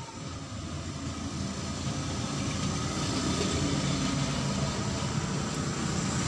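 A vehicle engine running, a steady rumble that grows louder over the first three seconds and then holds.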